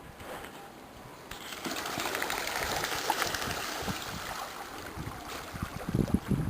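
Water splashing and trickling at a pond's surface, a steady busy patter of small splashes. Near the end a loud, uneven low rumble comes in.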